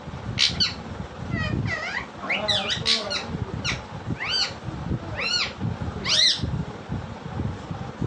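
Pet parakeet calling: a string of sharp squawks and chirps, ending in three rising-and-falling screeches about a second apart.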